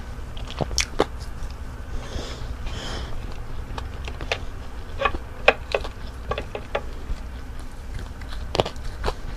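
Close-miked mouth sounds of chewing fried salmon: scattered wet smacks and clicks at uneven intervals over a steady low hum.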